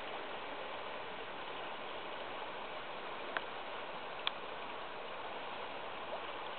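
Steady rush of a wide river running over gravel shallows, an even hiss with no pitch. Two short clicks come about a second apart past the middle.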